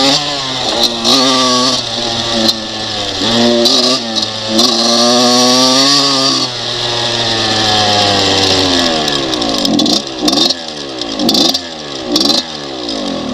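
Kawasaki KX125's freshly rebuilt 125cc two-stroke single revving up through the gears in several rising pulls. About halfway through the rider rolls off and the pitch falls steadily, ending in choppy low-rpm running with short throttle blips.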